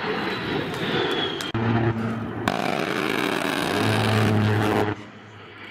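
Vehicle engine running with a rushing noise and a low steady hum that swells twice, dropping away sharply about five seconds in.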